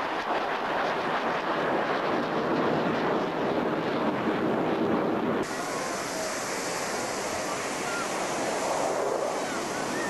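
Steady rushing roar of military jets flying overhead in smoke-trailing formation, mixed with wind on the microphone. The sound changes abruptly about five seconds in, and faint gliding whines follow.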